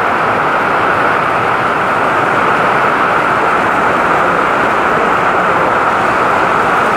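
Heavy downpour of rain: a loud, steady, unbroken rush.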